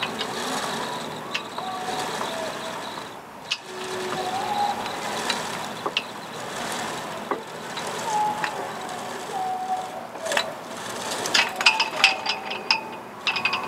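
Paravane outrigger rigging as the outrigger pole is hauled back up on its control line: short squeaks from the lines and blocks with scattered clicks, then a quick run of ratchet-like clicks near the end.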